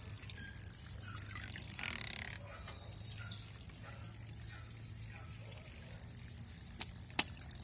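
Homemade battery-motor toy boat churning water in a plastic basin: a steady light splashing and trickling from its propeller wake over a low steady hum. Two sharp clicks come near the end.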